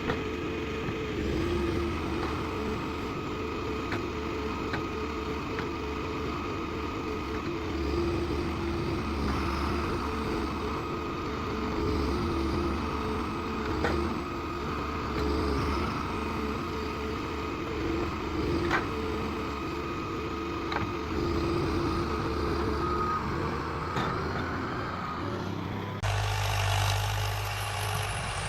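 Forestry forwarder's engine running steadily while it works, with a few sharp knocks. Near the end the sound switches abruptly to a deeper, louder engine hum.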